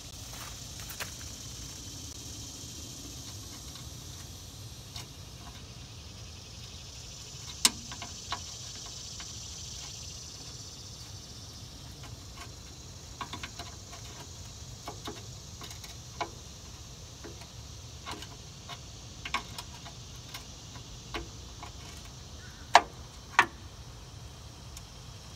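Scattered metallic clicks and clinks of an adjustable wrench working the drain fitting at the bottom of a hydraulic fluid tank, with the sharpest two near the end, over a faint steady high hiss.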